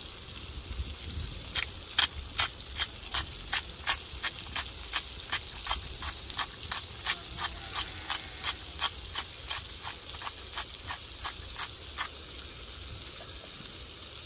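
A utensil clicking against a dish in a steady mixing rhythm, about two and a half clicks a second. The clicks start about a second and a half in and stop about two seconds before the end.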